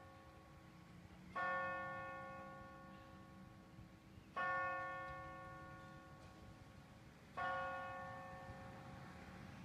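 A single church bell tolling three times, about three seconds apart, each stroke ringing out and slowly fading.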